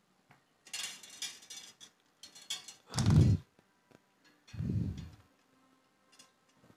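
Copper wire being twisted tight by hand around an aluminium antenna boom: short scraping and rustling of the wire, with two dull knocks, the louder about three seconds in.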